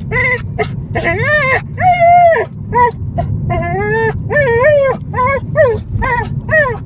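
Dog in a car crying in excitement: a rapid string of high whines and yelps, each rising and falling in pitch, over a low steady rumble.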